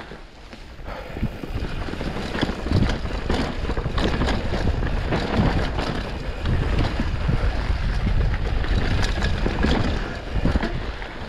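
Mountain bike descending a dry dirt singletrack. Wind buffets the microphone over the rush of the tyres on dirt, and frequent knocks and rattles come from the bike as it hits roots and bumps. The noise builds up over the first second or two as speed picks up.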